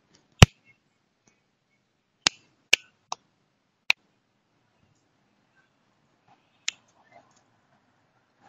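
Handling noise on a handheld camera: about six sharp clicks and knocks with near silence between. The loudest comes about half a second in, four more follow between two and four seconds in, and the last comes near seven seconds.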